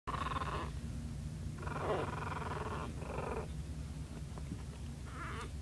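Three-week-old puppies growling in play as they wrestle, in four short bouts.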